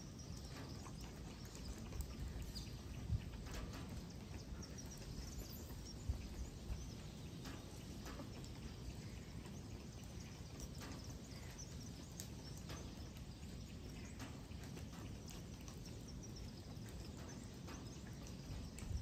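Quiet outdoor ambience: a steady low rumble with scattered soft clicks and a few faint high chirps.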